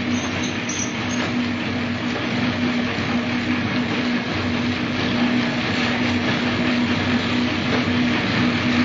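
Packaging machine running: a steady mechanical noise with a constant low hum.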